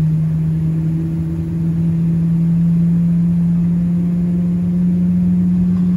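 The GE90-115B turbofan engines of a Boeing 777-300ER, heard inside the cabin just after start-up, give a steady low hum whose pitch slowly rises.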